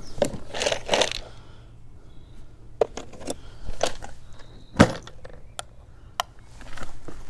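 Rummaging in a plastic toolbox: clatter and scattered clicks of small metal tools and parts being handled, with one sharper knock about five seconds in.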